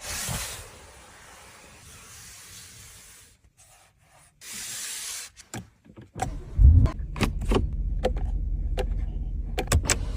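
Sounds from a Bentley car: a short hiss twice, then from about six seconds in a steady low running sound with sharp clicks over it.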